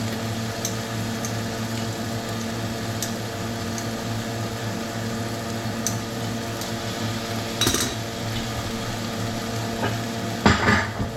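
Kitchen sounds while cooking: a steady hum runs throughout, with occasional light clinks of utensils on dishes or pans and a brief scrape about two-thirds of the way in. A louder clatter starts near the end.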